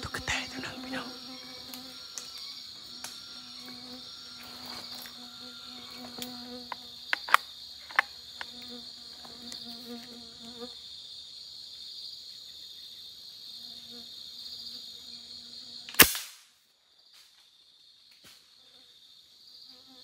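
Steady high drone of forest insects, with a low buzzing insect hum that comes and goes and a few sharp clicks. About sixteen seconds in, a single loud, sharp gunshot, likely the hunter firing into the canopy; afterwards the sound drops away to near quiet.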